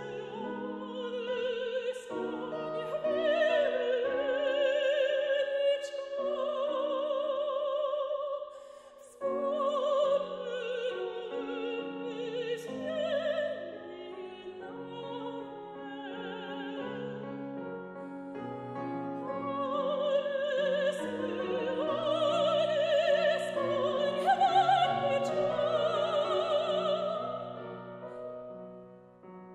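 Soprano singing with vibrato over grand piano accompaniment, in a classical art-song or aria style. There is a brief pause about nine seconds in.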